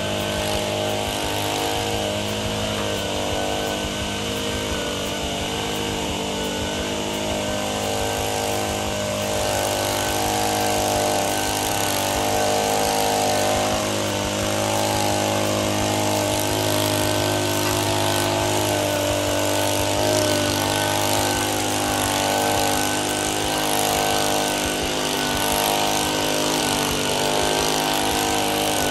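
Small petrol engine of an outdoor power tool running steadily at high speed, with a constant rushing hiss over its hum.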